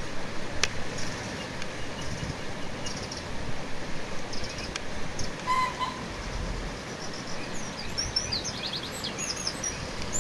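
Birds chirping, with a quick run of chirps near the end, over a steady outdoor background hiss. A couple of sharp clicks come from a knife cutting tomatoes on a ceramic plate.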